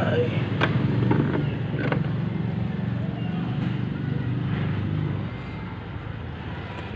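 A low, steady engine hum from a motor vehicle running nearby, dropping in level about five seconds in, with a few light clicks in the first two seconds.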